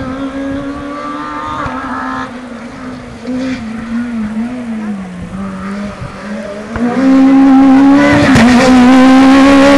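Rally car engine at high revs, its pitch rising and falling with the gear changes as the car comes along the valley road, then much louder and held steady from about seven seconds in as it nears. A few sharp cracks about eight seconds in.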